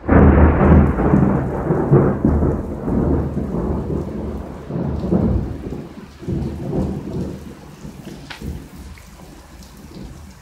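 A thunderclap during heavy tropical rain: it breaks out suddenly and loudly, then rumbles and rolls in waves, fading over about eight seconds, with the steady hiss of the downpour beneath it.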